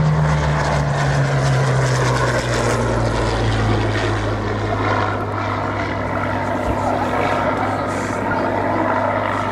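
Rolls-Royce Merlin V12 of a Second World War fighter flying past in a display. The engine note drops in pitch over the first few seconds as it passes, then settles into a steady drone.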